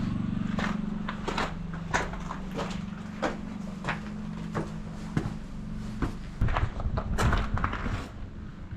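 Footsteps on hard ground, irregular knocks about two a second, over a steady low hum.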